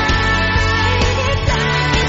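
Upbeat pop song playing: a melodic line over a full band backing with a steady drum beat.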